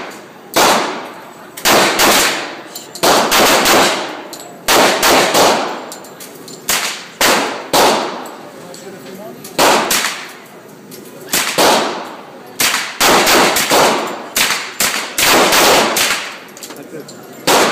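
AR-15 rifle firing semi-automatic: about thirty sharp shots in irregular strings of single shots and quick doubles and triples. Each shot rings on in the echo of an indoor range.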